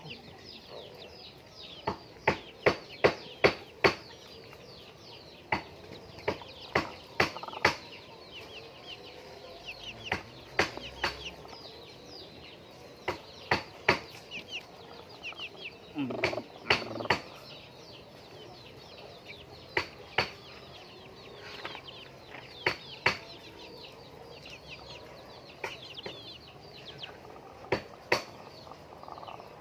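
A flock of laying hens clucking and calling, with many short, high, falling calls. Repeated sharp clicks and knocks come in clusters, the loudest a run of them about two to four seconds in.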